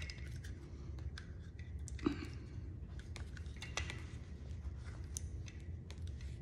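Scattered small clicks and rubbing of plastic and rubber parts as a new electric fuel pump is pushed into the housing of a 2010 Arctic Cat TRV 700S fuel pump assembly, one click a little sharper about two seconds in, over a low steady hum.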